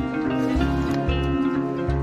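Background music: a melody of plucked notes over a steady bass beat.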